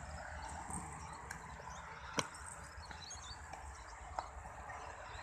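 Kick scooter rolling over concrete, with a sharp clack about two seconds in and another about four seconds in.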